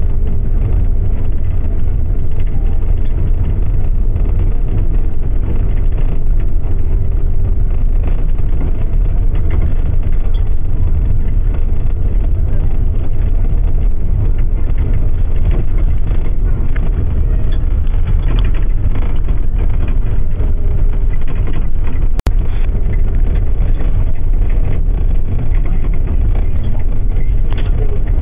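Steady low rumble of engine and road noise heard from inside a moving bus at highway speed. The sound cuts out for an instant about 22 seconds in.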